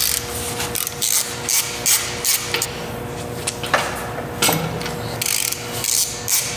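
Hand ratchet clicking in short, uneven bursts of strokes as tight bolts are worked on a Ford 8.8 rear axle.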